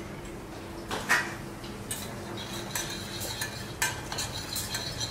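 A metal spoon clinking and scraping against a small stainless steel saucepan while stirring a sauce, with a few sharp irregular knocks over a steady low kitchen hum.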